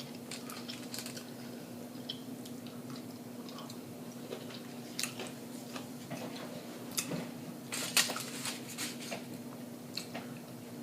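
A person chewing food: scattered wet mouth smacks and clicks, loudest around five, seven and eight seconds in, over a steady low hum.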